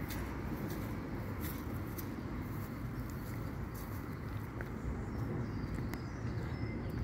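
Steady low wind rumble on the phone's microphone outdoors, with a few faint, short, high bird chirps.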